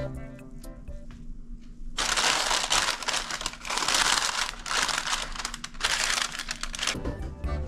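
Parchment paper crinkling and rustling in a loaf pan as dry bread-cube stuffing is scooped in and pushed down with a silicone spatula. It comes in about five rustling bursts starting about two seconds in.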